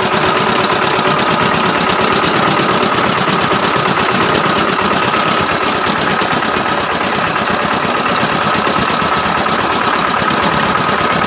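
Small single-cylinder stationary diesel engine of a sugarcane-juice cart, the engine that powers the cane crusher, running steadily with a rapid, even chugging beat.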